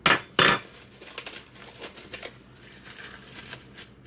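A clear plastic bag holding a ball of pie dough crinkling as it is handled. There are two loud rustles in the first half-second, followed by a run of quieter crackles.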